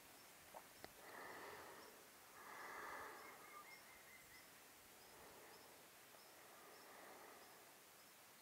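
Near silence, with two soft breaths about one and two and a half seconds in, and faint high ticks repeating about twice a second.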